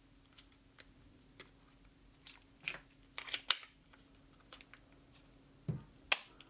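Plastic grip panels being fitted and pressed onto a paintball marker's frame: scattered clicks and taps of plastic on plastic, with a sharp snap about three and a half seconds in, a dull knock and another sharp snap near the end.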